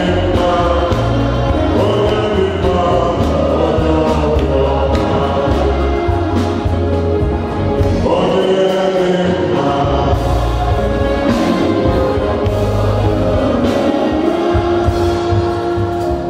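A choir singing a gospel song in held notes over instrumental backing with a bass line.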